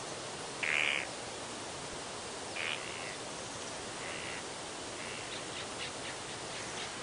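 Forest ambience: birds calling over a steady background hiss. A few short calls come a second or two apart, the loudest about a second in, then a quick run of brief chirps near the end.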